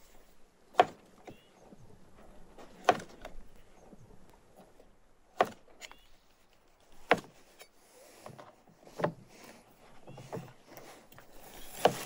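Cleaver slicing through raw lamb fat and knocking on a wooden cutting board. There are about seven sharp knocks, one every couple of seconds, with soft slicing noise between them.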